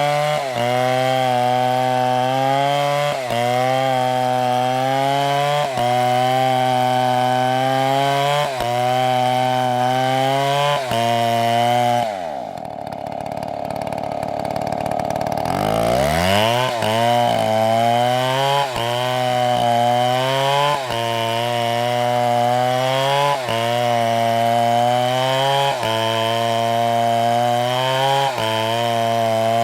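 Two-stroke chainsaw running at high revs and cutting wood, its pitch sagging under load every couple of seconds. About twelve seconds in it drops almost to idle, then is revved back up and keeps cutting.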